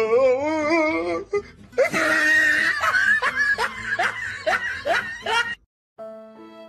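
A person laughing hard in quick repeated bursts, after a long wavering, rising vocal sound in the first second or so. The sound cuts out briefly near the end, and a slow tune of held notes starts.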